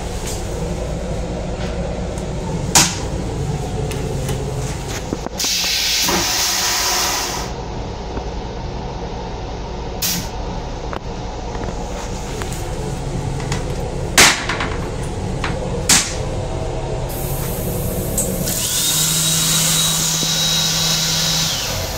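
Toilet in an M8 railcar restroom flushing with a loud rushing whoosh for about two seconds, some five seconds in, over the steady rumble of the moving train, with a few sharp clicks. Near the end the sink faucet runs for about three seconds with a hiss and a steady hum.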